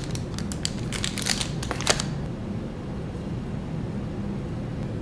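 Paper info booklets and cards being handled: a quick run of light clicks and rustles for about two seconds, then only a steady low hum.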